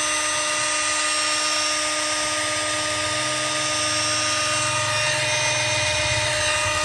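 Milwaukee 2715 M18 FUEL brushless SDS-Plus rotary hammer running free in drill mode, with no load. It gives a loud, steady motor whine at constant speed.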